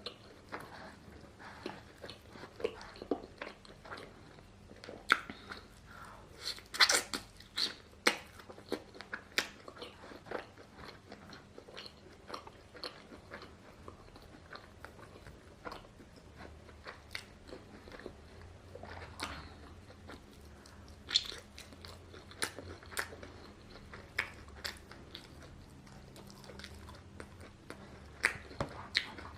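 Close-miked eating of chicken: irregular crisp crunches and bites with chewing in between, loudest a few seconds in.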